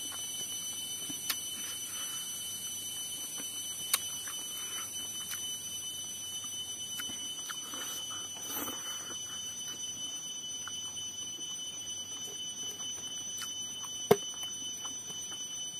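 A steady high-pitched whine over a high hiss, with faint sounds of eating rice by hand off a banana leaf, and three sharp clicks, the loudest near the end.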